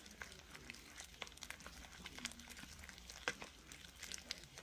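Faint, scattered small clicks of glue slime being stirred with activator in a container.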